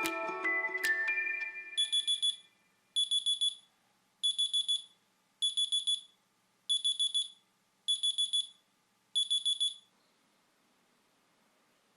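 Electronic alarm beeping: seven bursts of four quick, high beeps, about a second apart, then it stops.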